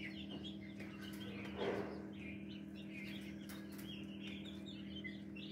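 Many chicks peeping in quick, short chirps, with a low steady hum beneath and one louder stir about two seconds in.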